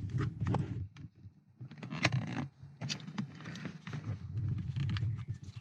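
Plastic retaining tabs on a car window-switch cover being pried and unclipped: a string of sharp clicks with scraping and handling of plastic.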